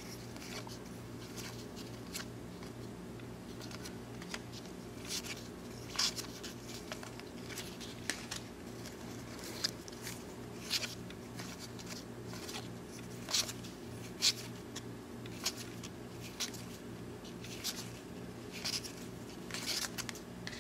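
1993 Donruss baseball cards being flipped one at a time through a stack in the hands: light, irregular snaps and slides of card stock, roughly one a second, over a steady low hum.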